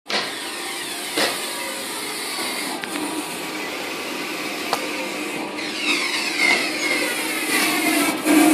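WitColor Ultra 9200 eco-solvent large format printer, powered on and running, giving a steady mechanical noise with a few sharp clicks.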